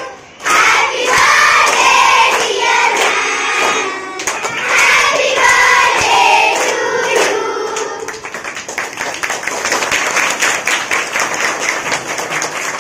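A group of schoolgirls singing together in chorus, then from about eight seconds in, many hands clapping fast.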